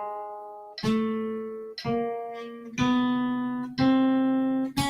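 Acoustic guitar playing a one-finger-per-fret single-note exercise, one plucked note about every second in time with a metronome set to 60. The pitch steps up a little with each note, and each note rings until the next. The guitar is tuned about a half step low.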